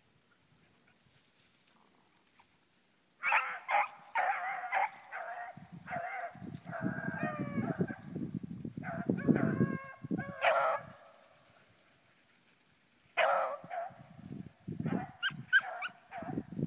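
Beagles baying in bursts, hound voices on a rabbit's scent trail, starting about three seconds in and coming again near the end. A low rumbling noise runs under the calls in the middle.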